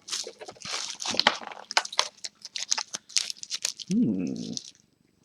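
Trading card packaging being torn open by hand: a run of irregular crinkling, crackling and tearing of thin plastic wrap and foil from a Cardfight!! Vanguard booster box.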